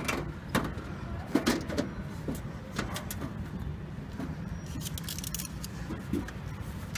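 Scattered clicks and knocks of a desktop computer case being handled as its metal side cover is put back on, over a steady low hum.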